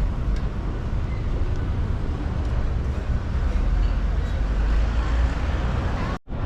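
Busy urban walking ambience: a steady low rumble with a faint murmur and scattered small clicks. The sound cuts out for a moment near the end.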